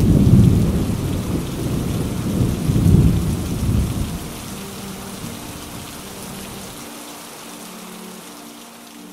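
Heavy rain pouring down in a thunderstorm, with thunder rumbling through the first four seconds and then dying away, leaving the steady hiss of the downpour.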